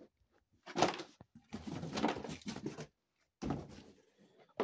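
Handling noise: rustling and bumping as things are moved about by hand, in three stretches.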